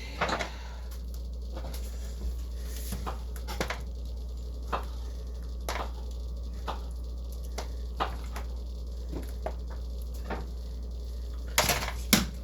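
A spoon knocking and scraping against a pan while a filling is spread evenly, in short clicks about once a second, with a few louder knocks near the end. A steady low hum runs underneath.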